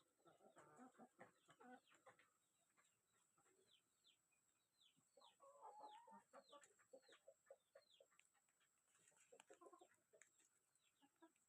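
Faint chickens clucking, with many short high calls that fall in pitch, about two a second.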